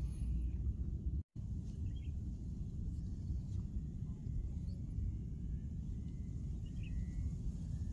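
Outdoor ambience dominated by a steady low rumble of wind buffeting the microphone, with a few faint short bird chirps. The sound cuts out completely for an instant about a second in.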